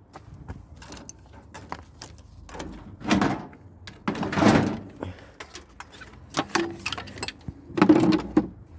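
Parts of a scrapped tumble dryer being handled and set down: a string of knocks and clunks, with louder clunks about three seconds in, halfway through and near the end.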